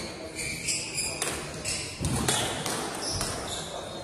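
A squash rally: the ball is struck by rackets and smacks off the court walls in a string of sharp knocks. The players' shoes give short, high squeaks on the wooden floor.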